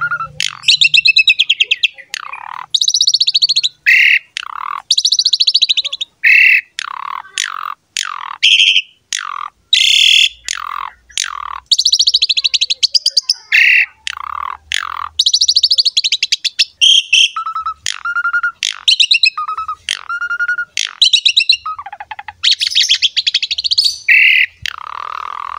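Asian pied starling (jalak suren) in full song: a rapid, unbroken run of loud whistles, chattering and harsh squawky notes, with a few clear level whistles repeated in the middle.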